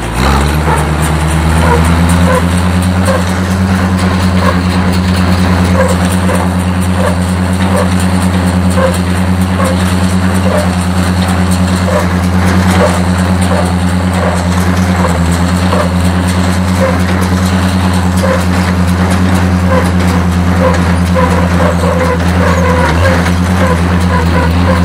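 Oliver tractor engine throttled up at the start and then running steadily under load, driving an Oliver 720 square baler through its PTO, with a light regular ticking from the baler's working parts.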